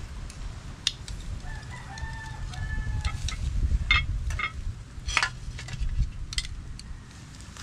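A rooster crows once, a held call of about a second and a half starting a little over a second in. Sharp clicks and clanks of metal tongs against a wire grill grate and a metal plate as grilled pork chops are lifted off, loudest about four seconds in.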